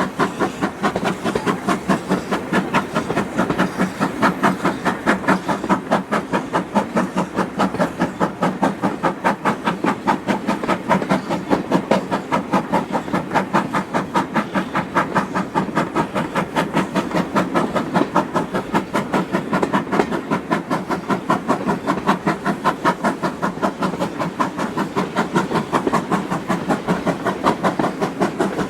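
Steam locomotive No.9351, a GWR-style 2-6-0, running under steam with a fast, even exhaust beat.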